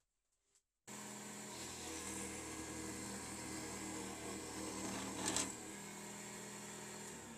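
Jigsaw mounted upside down under a table, switched on about a second in and sawing through a small pine board, with a sharp burst near the end of the cut. It then runs free more evenly and is switched off near the end, winding down.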